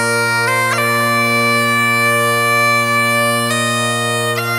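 Bagpipe music: steady drones under a chanter melody of held notes that shifts pitch a few times, with quick grace-note flourishes near the end.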